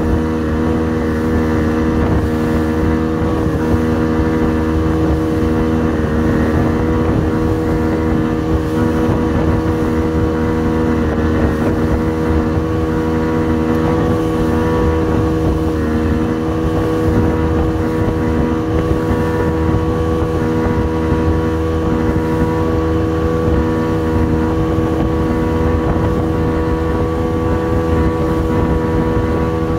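70 hp outboard motor running steadily at speed under load, towing a banana boat, a constant engine drone over the rush of the boat's wake.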